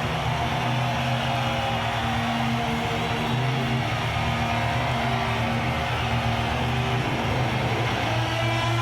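Live rock band playing loud, with distorted electric guitar and bass holding long sustained notes.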